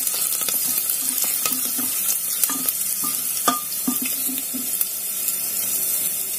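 Cumin seeds and garlic cloves sizzling and crackling in hot mustard oil in a pressure cooker, the tempering (tadka) stage. A wooden spatula stirs them, knocking and scraping on the pot for the first four seconds or so.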